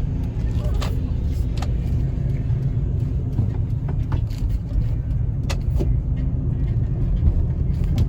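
Cabin sound of a 1999 Lexus RX 300 under way: a steady low rumble from its 3.0-litre V6 and the road, with a few light clicks. The engine is misfiring on cylinder 6, which the owner blames on a failing ignition coil.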